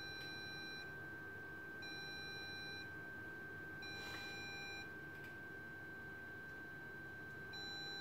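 Small loudspeaker beeping the Morse code letter D from an FPGA Morse code encoder. A long beep ends just under a second in, then two shorter beeps of about a second each follow with about a second between them, and another beep starts near the end.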